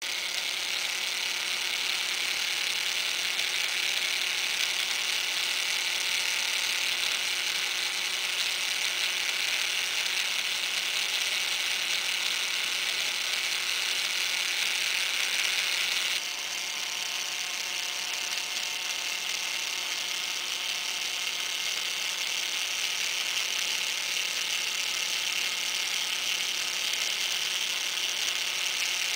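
A kinetic sculpture's small electric gearmotor turning a large plastic spur gear and a cam-and-lever linkage: a steady, high-pitched mechanical whir of meshing gears. A little past halfway it turns slightly quieter and duller.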